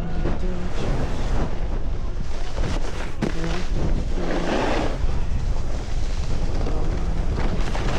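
Wind rushing over the microphone of a snowboarder riding downhill, with the board sliding and scraping over the snow; a louder scrape comes about halfway through.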